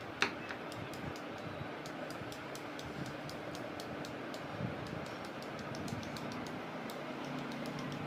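Paintbrush handles tapped against each other to spatter white paint: a run of light, irregular clicks, several a second, with one sharper knock about a quarter second in.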